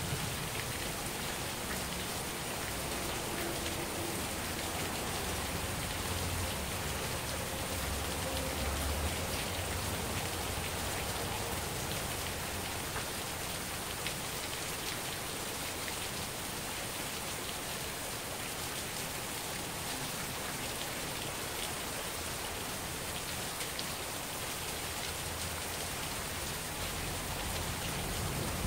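Heavy rain falling steadily in a thunderstorm, pattering on surfaces close to the microphone. A low rumble swells briefly about eight seconds in.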